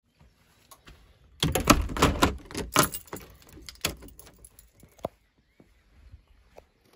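Keys jangling and a front door being shut and locked: a burst of clattering about a second and a half in, then a few sharper clicks from the lever handle and lock.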